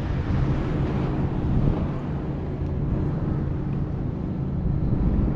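Steady low hum of a boat motor, with wind buffeting the microphone.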